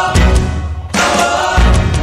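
A song with a sung vocal and a drum beat, briefly dropping out just before the middle.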